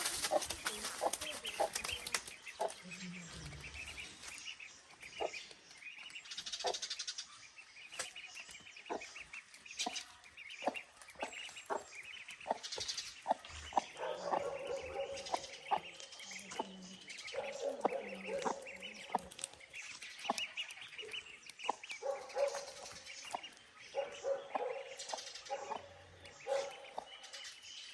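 A hen clucking and small call ducklings peeping: the high peeps repeat throughout, and the hen's lower clucks come in about halfway.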